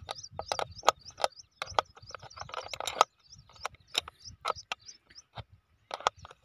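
Metal spanner working the nuts and bolts of a CID pipe joint as they are tightened: a run of short sharp clicks, a few a second, broken by brief pauses.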